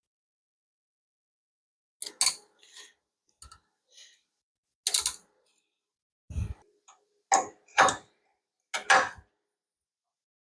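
Metal hand tools clinking and clanking: a string of separate sharp metallic knocks, about eight in all, with a heavier, deeper knock about six seconds in.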